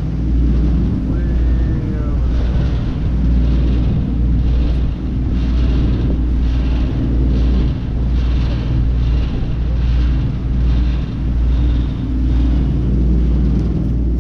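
Tour boat under way: its engine running as a steady deep rumble, with wind buffeting the microphone on the open deck and the rush of the wake.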